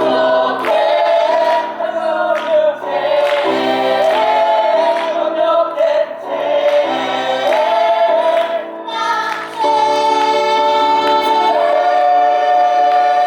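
Musical theatre song: voices singing together over instrumental accompaniment, drawing out the closing phrase in long held notes, with one high note held through the last few seconds.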